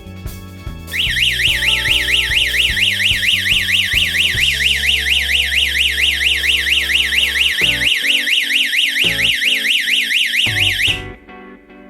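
Security alarm system's electronic siren sounding a rapid high warble, about five sweeps a second, that starts about a second in and cuts off suddenly some ten seconds later: the system's timed 10-second alarm, which switches itself off. Background music plays underneath.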